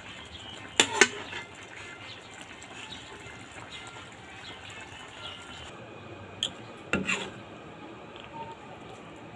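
A serving utensil knocks against the cooking pot in two sharp pairs, about a second in and again about seven seconds in. Soft wet sounds of the coconut-milk vegetable stew (ginataang kalabasa) being handled lie underneath.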